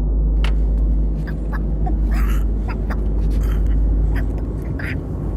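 Short, scattered bird calls over a steady low rumble.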